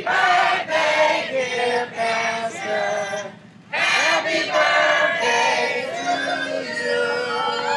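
A group of people singing together, with a short break in the singing a little under halfway through.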